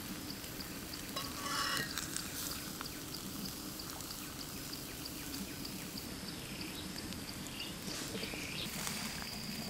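Outdoor ambience: a steady high insect trill of rapid, even ticks, with a short animal call about a second and a half in and a few brief gliding calls near the end.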